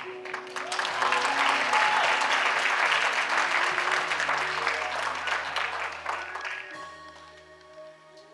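A congregation applauding over music with long held chords; the clapping dies away about two-thirds of the way through, leaving the music playing alone.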